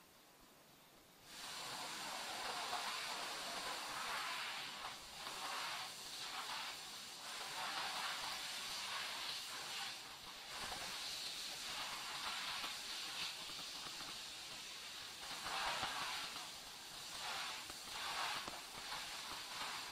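A high-pressure water spray hisses steadily, starting abruptly about a second in and swelling and dipping without stopping.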